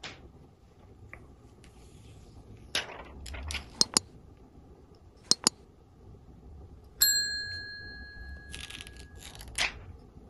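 Hands handling a new Samsung Galaxy S22 Ultra phone on a table: several sharp clicks and taps and some rustling. About seven seconds in comes a single ringing ding that fades over a second or two.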